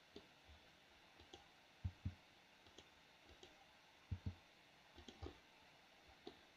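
Scattered clicks of a computer mouse and keyboard, soft and spaced out, with two pairs of slightly louder taps about two and four seconds in.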